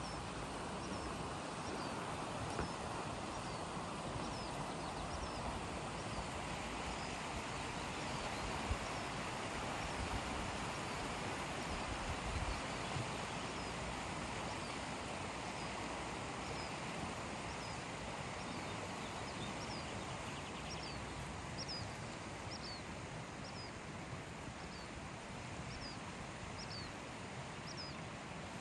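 Steady rush of flowing river water over rocks, with a bird repeating a short, high, falling chirp about once a second.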